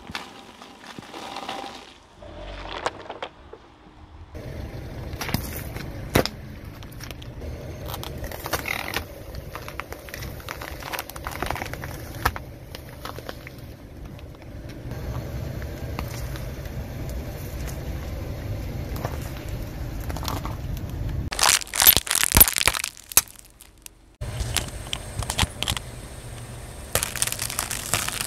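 A car tyre slowly rolling over objects on asphalt and crushing them: repeated cracks and crunches over a low rumble from the tyre. A louder flurry of sharp cracks comes about three-quarters of the way through.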